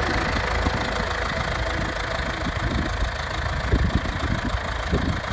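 John Deere 5720 tractor's diesel engine running steadily with a low rumble.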